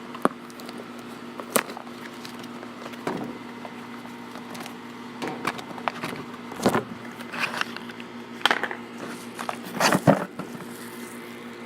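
Packaging being handled while a camera lens is unboxed: scattered sharp clicks and short crinkly rustles, busiest in the second half, over a steady low hum.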